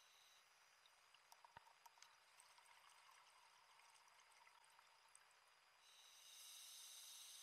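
Scuba diver's regulator exhaust bubbles, faint and heard underwater: a bubbling hiss that fades about half a second in, a few small clicks and crackles, then the next exhalation's bubbles starting about six seconds in.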